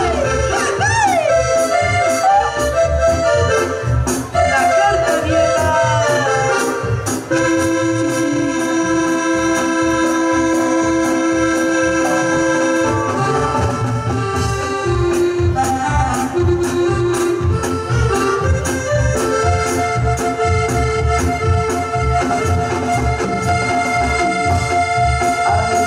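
Live dance band playing an instrumental passage: a melody of long held notes with an accordion sound over bass and a steady drum beat.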